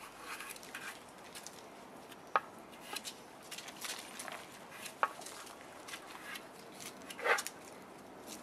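Five-week-old Boerboel puppies playing and scuffling on a sheet over dirt: scattered light rustling and scratching, with a sharp click about two and a half seconds in, another near five seconds, and a short louder noise about seven seconds in.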